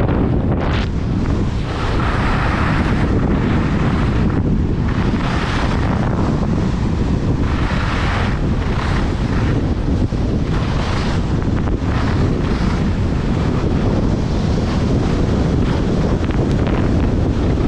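Wind buffeting the microphone of a skier's action camera during a fast downhill run, a heavy steady rumble, with the hiss of the skis scraping across groomed snow swelling with each turn every few seconds.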